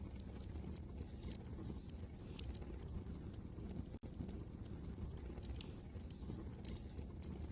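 Fireplace crackling: irregular sharp pops and snaps over a steady low rumble of wind. The sound cuts out for an instant about four seconds in.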